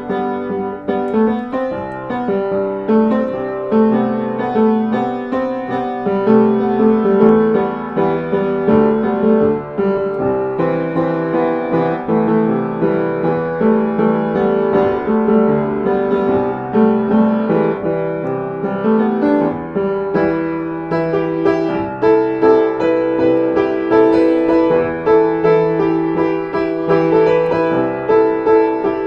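Piano music: a continuous run of notes with no break.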